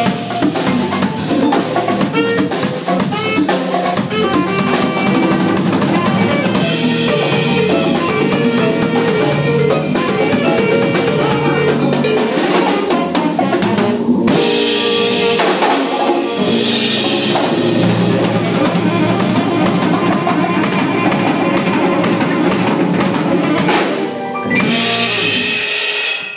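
Latin jazz band playing live, the drum kit to the fore with kick, snare and rimshots over bass and piano; the music thins out near the end.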